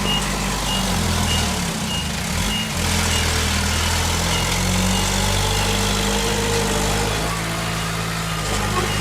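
Heavy diesel earth-moving machinery running, its engine note shifting under load, with a reversing alarm beeping about twice a second that fades out a couple of seconds in.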